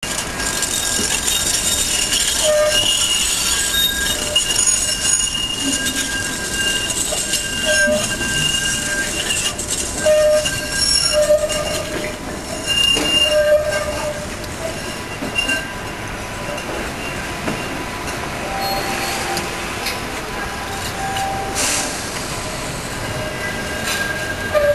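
Tatra T5C5 trams' steel wheels squealing on tight curved track: several high, steady squeal tones that start and stop one after another, over the rumble of the trams rolling, with a few sharp clacks from the wheels on the rails.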